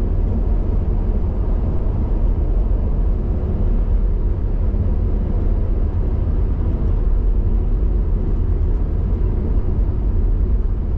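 Steady low rumble of a diesel car cruising at motorway speed: engine and road noise with no sudden events.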